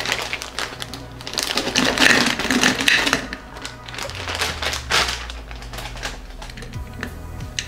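Green ume plums poured into a glass jar, tumbling and clinking onto rock sugar and the glass in a rapid clatter that is loudest around two to three seconds in, then a few quieter clicks as they settle.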